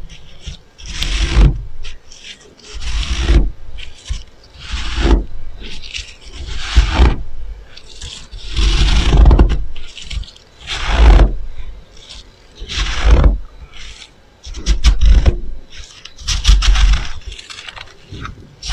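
A gloved hand pressing and scooping through a bowl of loose freezer frost, scraping and crunching in slow strokes about every two seconds. Each stroke carries a dull low thud.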